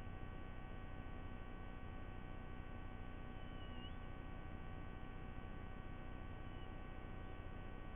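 Steady electrical hum and hiss from the nest camera's audio feed, with several faint steady whining tones running through it. A faint short wavering chirp sounds about three and a half seconds in, and again more weakly near the end.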